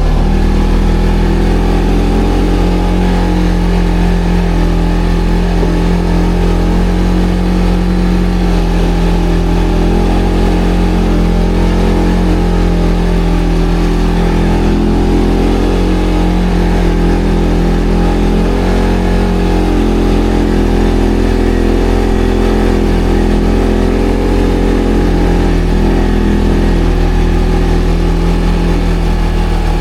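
ATV engine running steadily with little change in pitch, under light, even throttle.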